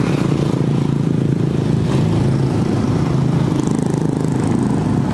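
A motor vehicle's engine running steadily, a low even hum close to the microphone.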